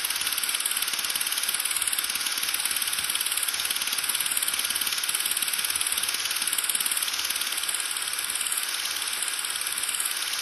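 Steady static hiss with a fast, fine crackle, matching the scratched old-film look on screen.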